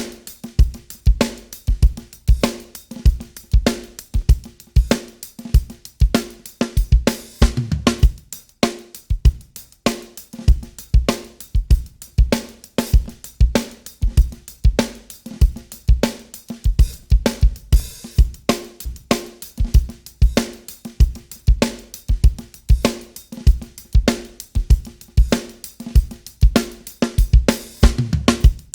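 Recorded drum kit loop (kick, snare, hi-hat and cymbals) played back through a TK Audio Transformer saturation unit. Its harmonic stages are being switched out one by one to back off the saturation.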